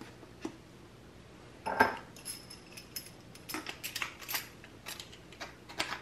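Metal clinks and clicks of a Force FX Elite lightsaber's metal pommel cap being handled and fitted onto the metal hilt: one louder clatter about two seconds in, then a run of small quick clicks.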